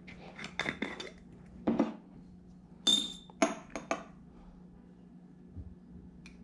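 Small hard objects clinking and tapping as they are handled: a quick run of clicks in the first four seconds, one of them, about three seconds in, ringing briefly. After that only faint room noise.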